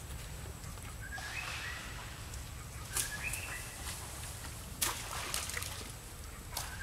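Short animal calls, each stepping up in pitch and holding briefly, repeated a few times, over a steady outdoor background with a couple of sharp clicks in between.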